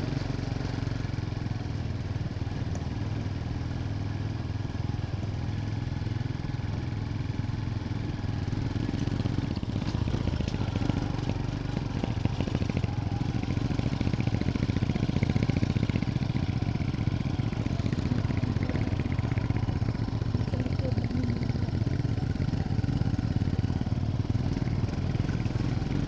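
Small motorcycle engines running steadily at cruising speed, with road and wind noise from riding. The sound grows a little louder about ten seconds in.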